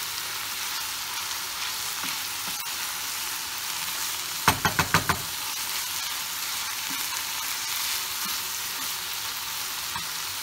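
Minced meat with peppers and tomato paste sizzling in a frying pan as it is stirred with a wooden spoon. About halfway through there is a quick run of about five knocks.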